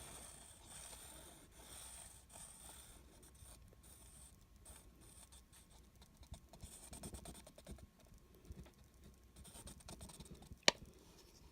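Faint scratching and handling noises while acrylic paint is poured, with one sharp click about ten and a half seconds in.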